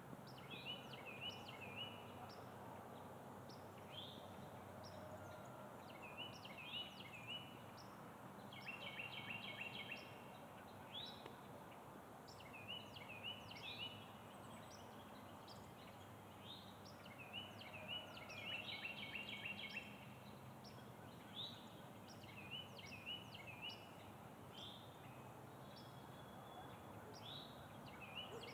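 Small birds calling: short, rapid series of high chirps repeated every few seconds over a faint steady background hiss.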